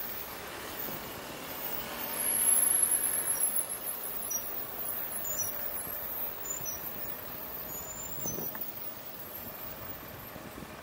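Road traffic and driving noise from a moving car in city traffic, swelling about two seconds in as a louder vehicle passes, with faint high squeals in the middle.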